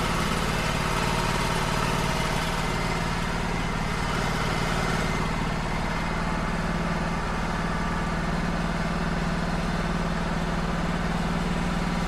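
Wood-Mizer LT35 hydraulic portable sawmill's engine running steadily, a constant low hum.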